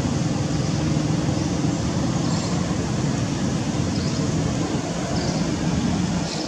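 Steady low rumbling background noise with faint, short high chirps every second or two.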